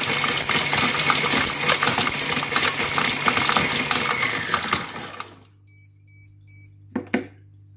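Compact Cook Pro multicooker's blade spinning at speed 6 on hard chunks of parmesan, a loud whirring rattle with the pieces clattering against the bowl; some chunks are too hard to be chopped. It stops about five seconds in, followed by four short electronic beeps and a knock.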